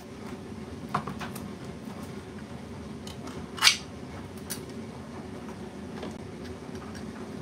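Handling of peach tins and a glass measuring jug on a kitchen counter: a few light clicks, then one short scrape just before the middle, over a steady low hum.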